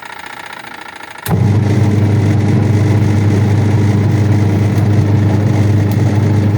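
Washing machine's electric motor switched on with a click about a second in, then running with a loud, steady mains hum that does not change in pitch.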